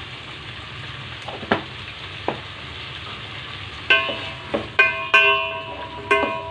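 Vegetables sizzling in oil in a metal pot. From about four seconds in, a wooden spatula stirs them and knocks the pot five or six times, each knock leaving the pot ringing.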